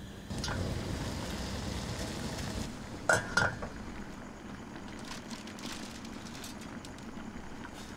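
A saucepan on a gas stove: a steady hiss of simmering water when the lid comes off, then two sharp metal clinks about a third of a second apart, followed by a few faint light taps.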